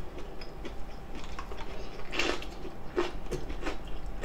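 Close-miked eating sounds: a few short, soft clicks and mouth smacks as cabbage ssam wraps are handled and chewed, the loudest about two seconds in.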